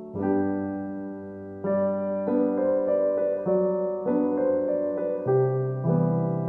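Background piano music: gentle notes and chords struck every half second or so, each fading before the next.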